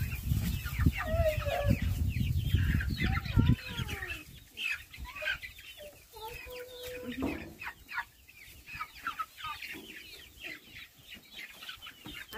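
Young chickens cheeping and clucking, many short rising and falling calls overlapping, with a low rumble during the first three or four seconds.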